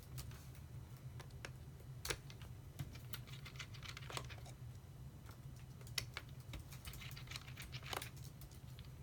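Faint small clicks and ticks of a precision screwdriver turning out the screws that hold the screen on a 2013 MacBook Pro 13-inch, with a few sharper ticks about every two seconds, over a steady low hum.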